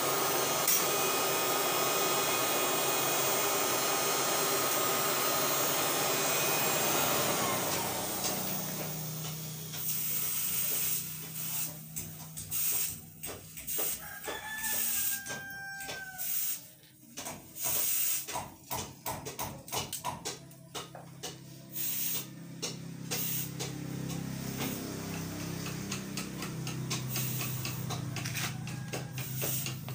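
Forge air blower running steadily, fading out about eight seconds in. Then a red-hot steel knife blade, cut from a motorcycle brake disc, is quenched in a tank of water, sizzling and crackling in irregular bursts.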